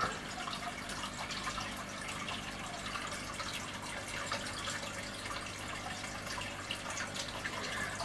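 Marine aquarium's water circulation trickling and bubbling steadily, with fine dripping ticks and a faint low hum.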